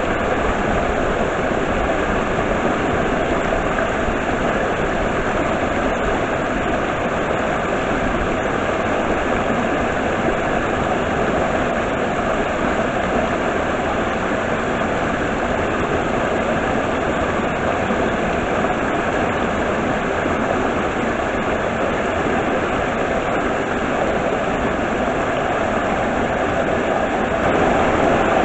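Stream water rushing at a waterfall: a steady, even rush of water with no breaks, a little louder near the end.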